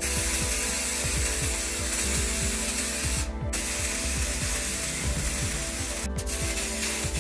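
Aerosol spray can of black paint hissing in long sprays, with short breaks about three seconds in and again about six seconds in.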